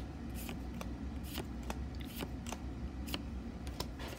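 Pokémon trading cards being flicked through one at a time in the hand, each card sliding off the stack with a short papery snap, two or three a second, over a low steady hum.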